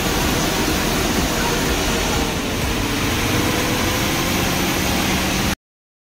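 KSRTC bus engine running with road noise, heard from inside the driver's cab: a loud, steady drone that cuts off abruptly about five and a half seconds in.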